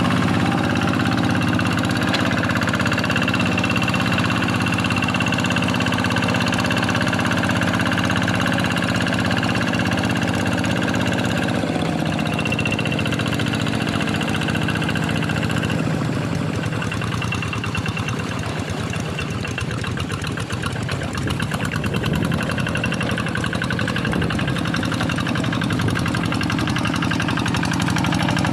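Quick G1000 hand tractor's single-cylinder Kubota diesel engine running under load while plowing a rice paddy. About halfway through its note drops and turns rougher, then steadies again.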